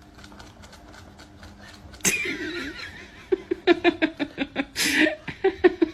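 A person laughing in a run of short, quick bursts, starting suddenly about two seconds in after a quiet start.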